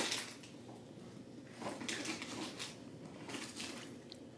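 Faint rustling and scuffing of a handheld camera being moved and gripped, with a few soft brushes of hand and clothing near the microphone.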